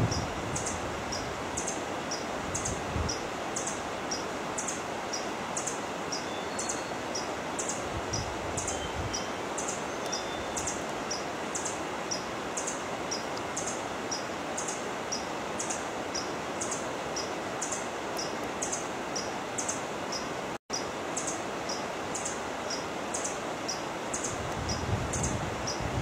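Forest ambience: a steady even hiss, with a high, thin chirp repeating at an even pace a few times a second. The sound cuts out for a split second about two-thirds of the way through.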